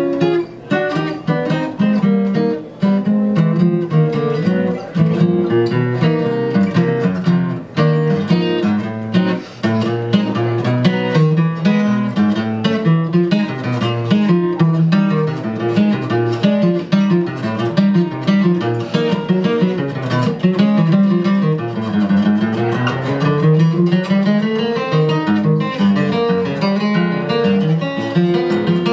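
Solo steel-string acoustic guitar played fast and busily, mixing quick single-note lines with chords; about three-quarters of the way through a rapid run sweeps down the neck and back up.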